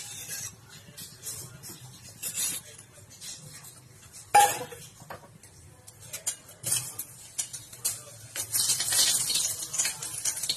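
Metal spoon and cookware clinking and scraping at the stove, with one loud ringing clang about four seconds in. Near the end a steady hiss sets in, like oil sizzling in the pan.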